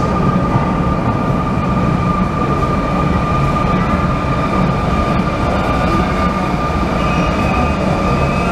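Navy-blue Sotetsu commuter train pulling into an underground station platform: a steady low rumble with a steady high whine over it.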